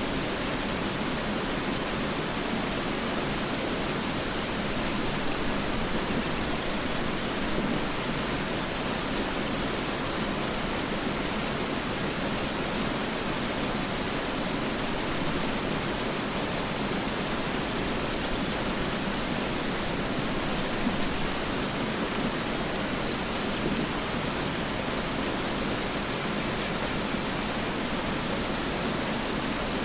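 Mountain river rushing steadily over rocks: a constant even hiss of water with no breaks.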